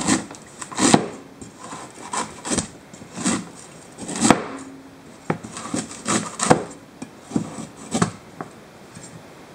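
Butcher knife shaving the fibrous husk off a young coconut: about a dozen short, irregular scraping chops, one or two a second.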